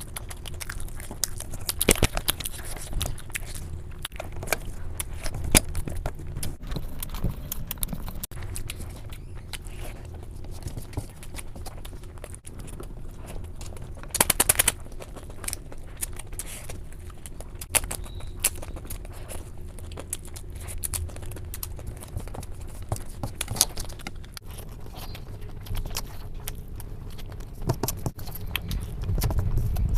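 Close-miked eating sounds: chewing with irregular sharp wet clicks, smacks and crackles, with a louder cluster of them about halfway through.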